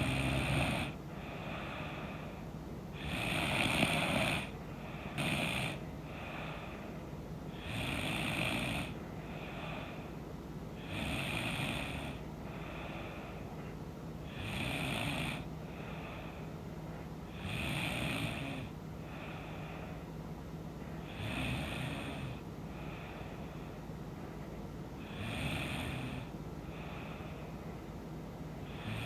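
A woman snoring in her sleep: a steady rhythm of rasping snores, about one every three and a half seconds.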